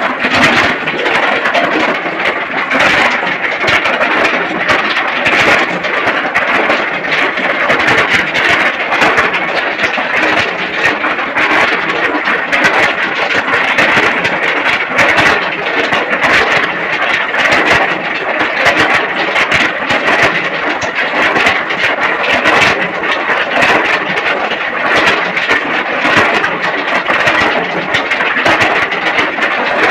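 A machine running steadily and loudly, a continuous dense rattling din.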